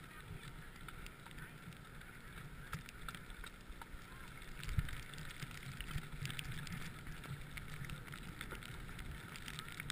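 Faint outdoor ambience: a steady low rumble with scattered light clicks, and one dull thump about five seconds in.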